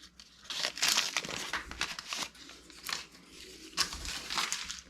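A baseball card pack wrapper being torn open and crinkled by hand, in irregular crackling bursts.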